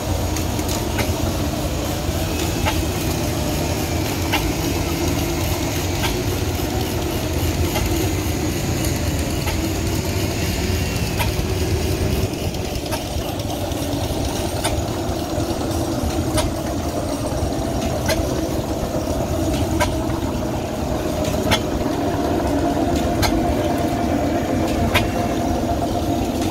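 Antique single-cylinder stationary engine with twin flywheels running: a steady low mechanical drone with a sharp click every second and a half or two.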